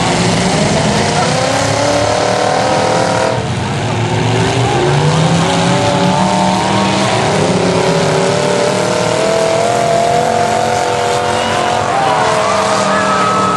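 Engines of several demolition derby cars revving hard, their pitches rising and falling against one another.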